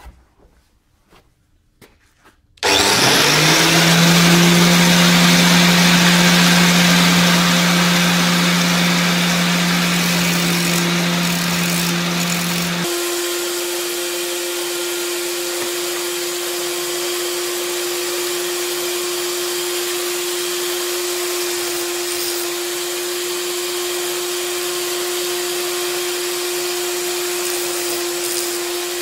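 Electric angle grinder switched on about two and a half seconds in, spinning up and then running steadily at speed. Near the middle its deeper hum drops away abruptly, leaving a steadier, higher hum.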